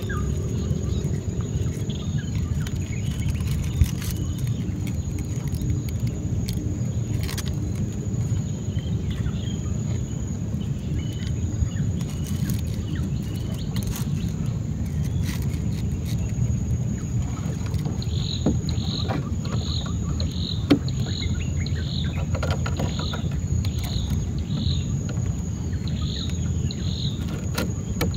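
Outdoor river ambience: a steady low rumble with a thin, steady high insect whine over it. About two-thirds of the way through, a short chirp begins repeating roughly every half second.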